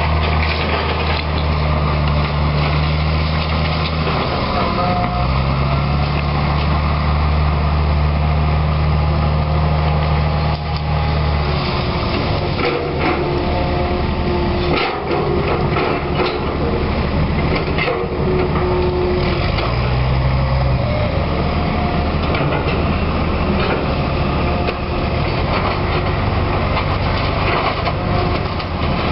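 Hitachi EX200LC excavator's diesel engine running under load, its pitch stepping up and down as the arm works. Splintering wood and debris crack and crash as the house is torn apart, most thickly in the middle of the stretch.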